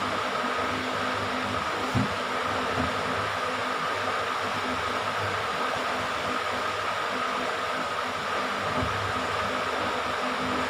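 Steady whirring hiss with a faint high whine, as from a running fan or motor, with a soft knock about two seconds in.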